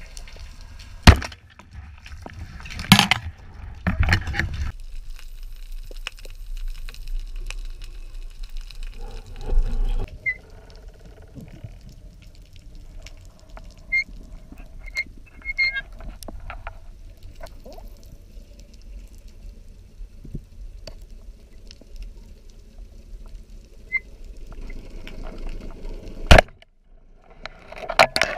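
Underwater sound as picked up by a diver's camera: a low, muffled water rumble with a few sharp knocks, the loudest about a second in and another near the end.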